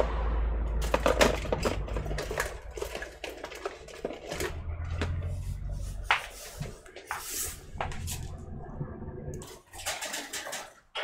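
Irregular small clicks, taps and rustles of tools and small parts being handled on a workbench, over a low hum.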